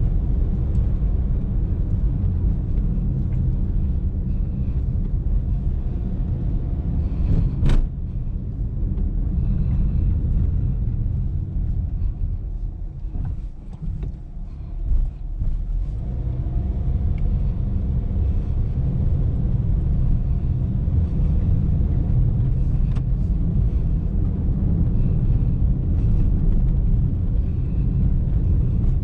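A 2019 Honda Brio CVT on the move: a steady low rumble of engine and road noise. There is a single sharp click about eight seconds in, and the rumble eases briefly a little before halfway.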